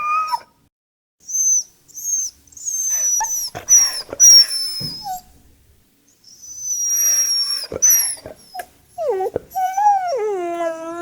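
Dog whining and whimpering: a run of very high-pitched whines, some short and some long and slowly falling. Near the end comes a lower, drawn-out whine that drops in pitch and then holds.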